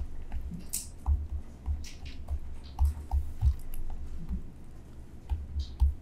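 Stylus tapping and scratching on a tablet screen during handwriting: irregular small clicks, soft low knocks and a few short scratchy strokes.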